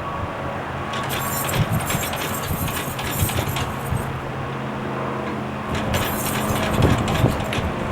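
Antique International Harvester hay baler running steadily after decades sitting out in the weather, with two stretches of clatter over the engine note, about a second in and again near the end.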